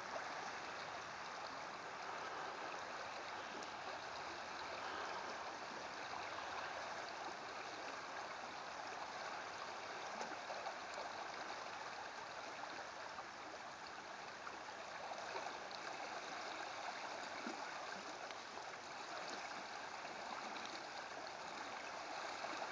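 River water running steadily past, an even rushing burble of the current.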